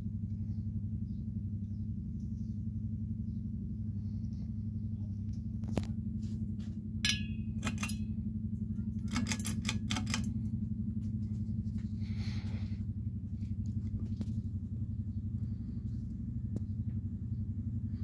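1994 Encon 36-inch ceiling fan running with a steady low motor hum that pulses evenly. A few sharp clicks and clinks sound about six to ten seconds in.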